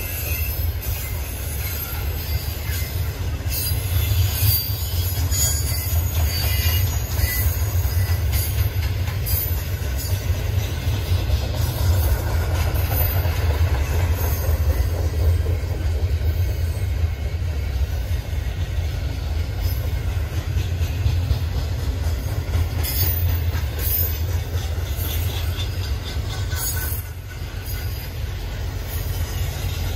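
A freight train's cars rolling past: a steady, heavy low rumble, with the wheels clicking and squealing now and then, most often in the first third and again near the end.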